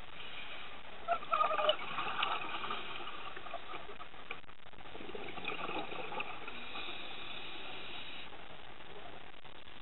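A scuba diver's breathing through the regulator, heard underwater: a steady hiss, with gurgling exhaled bubbles about a second in and again more faintly around the middle; the hiss stops near the end.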